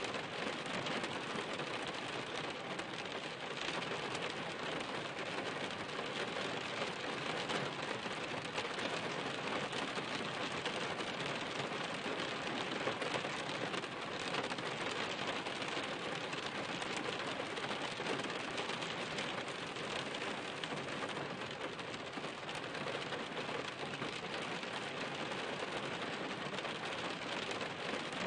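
Steady rain falling on a hard surface: an even, dense hiss of many small drops landing, unchanging throughout.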